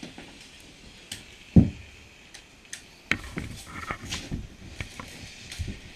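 Scattered sharp clicks and knocks, with one heavy thump about one and a half seconds in and a busier run of knocks in the second half.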